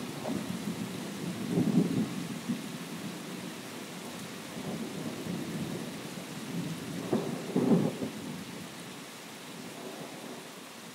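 Rain with a low rumble, heard from inside a bus driving through a rainstorm. The rumble swells louder about two seconds in and again around seven to eight seconds in.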